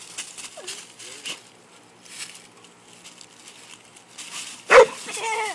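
A dog, agitated at a bird feeder, gives one loud sharp bark near the end, followed by short whining yelps. Faint brief whimpers come earlier.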